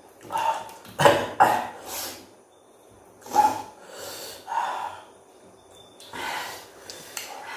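People eating spicy Korean ramen noodles with chopsticks: a string of about eight short, breathy mouth and nose sounds, coughs and sniffs between mouthfuls.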